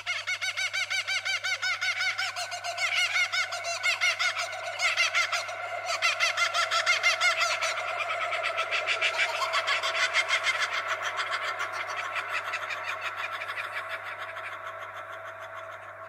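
A dense chorus of many birds chirping and calling at once, a fast run of quick overlapping chirps that fades toward the end.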